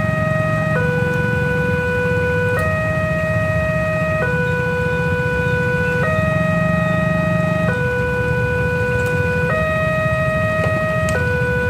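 Level-crossing warning alarm sounding a slow two-tone signal, alternating between a lower and a higher tone about every second and a half to two seconds, while the barrier is down for an approaching train. A steady low rumble of idling traffic sits underneath.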